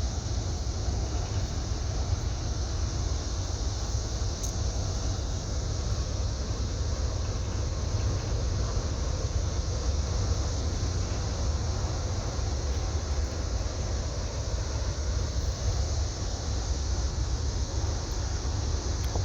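Towboat's diesel engines running steadily: a constant low rumble with a hiss above it.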